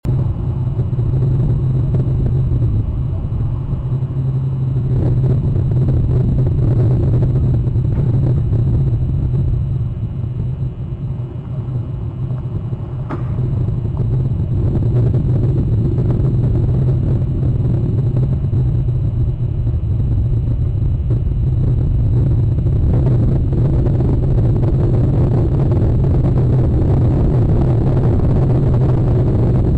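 A steady low rumble, dipping slightly about a third of the way in, with a single faint click about 13 seconds in.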